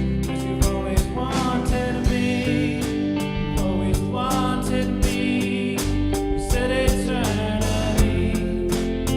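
Worship band music: a singer over guitar and drum kit with a steady beat.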